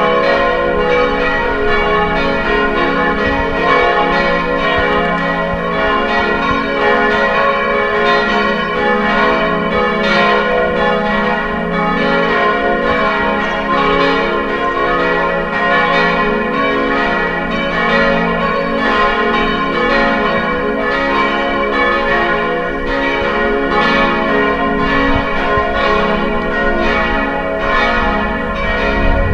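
Church bells ringing: several bells striking over and over, their tones overlapping in a continuous peal.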